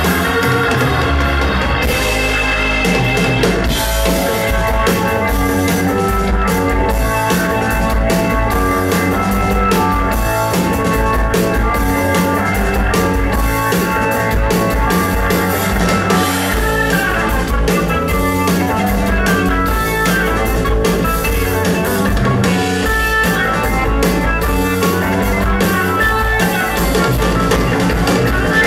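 Live rock band playing: organ and keyboards with a guitar and drum kit, loud and steady, picked up by a camera microphone in the audience.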